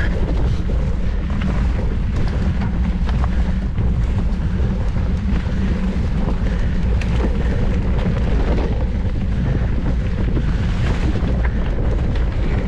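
Heavy wind buffeting on the microphone of a mountain bike ridden at race speed, with a steady rumble of tyres on the trail and scattered clicks and rattles from the bike over rough ground.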